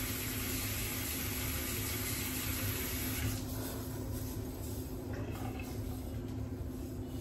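Water running steadily from a tap, shutting off about three seconds in; a steady low hum continues underneath.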